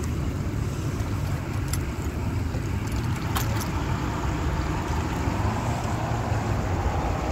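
Steady low rumble of wind buffeting the microphone, with a few faint clicks partway through.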